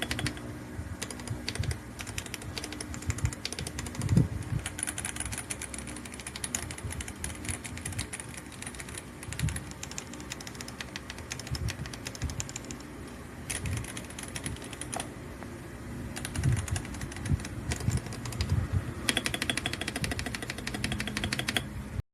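Typing on an RK M75 wireless mechanical keyboard, fully foamed with PBT double-shot keycaps: a steady run of irregular key clacks, with faster flurries near the start and toward the end and occasional deeper thocks from heavier keys.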